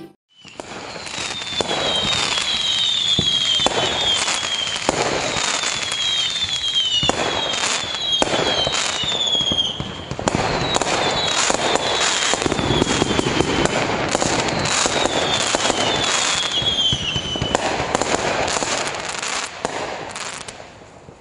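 Fireworks: dense crackling and popping with repeated bangs, and bunches of high whistles that fall in pitch, fading out near the end.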